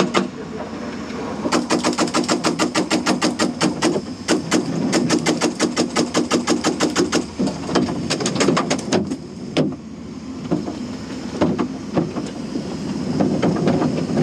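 Paintball marker firing rapidly from inside a paintball tank, in bursts of about eight shots a second from a second or so in until about nine seconds, then single shots now and then. The tank's engine runs steadily underneath.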